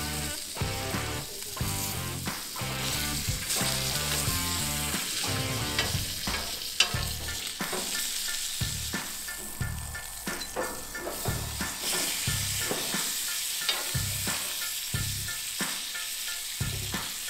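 Tomahawk steak sizzling in butter on a hot cast-iron griddle plate as it is basted, with a metal utensil knocking once about seven seconds in. Background music with a steady beat runs underneath.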